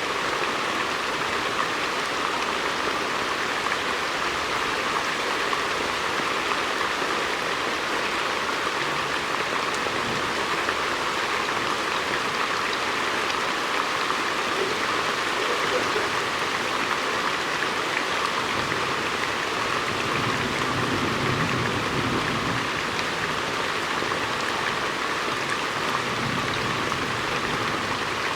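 Heavy rain falling steadily, a dense even hiss of drops, with a faint low rumble that comes and goes in the second half.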